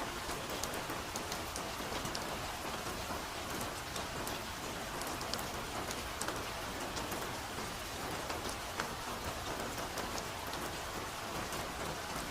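Soft, steady rain: an even hiss of rainfall with many separate drops landing as sharp ticks at irregular moments.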